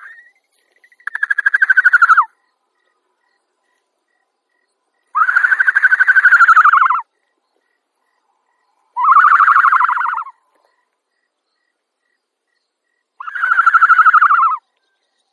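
An animal calling four times, each call a pulsed, arching cry lasting one to two seconds, with pauses of a couple of seconds between calls.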